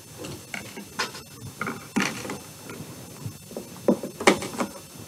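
Cardboard cut-out shapes being handled and slid about on a tabletop: irregular taps, scrapes and rustles, the sharpest taps about four seconds in.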